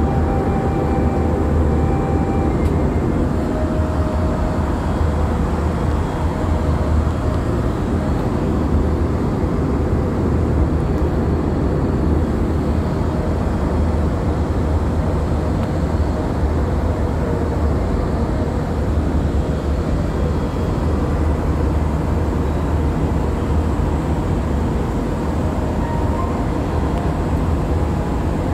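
Steady cabin noise inside an Airbus A321-211 airliner in flight: the drone of its CFM56 turbofan engines mixed with the rush of air over the fuselage, a loud, even, deep rumble.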